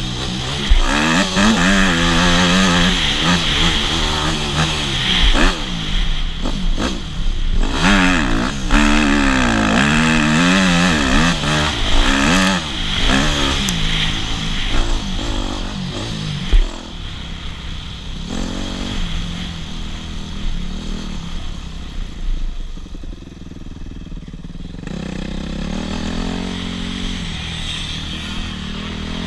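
Enduro motorcycle engine being ridden, revving up and falling off again and again. After about seventeen seconds it runs at lower revs, with a few shorter rises.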